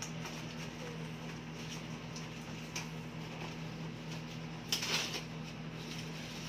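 Handling noises from unpacking a ring light stand: a few light knocks and rustles, the loudest about five seconds in, over a steady low hum.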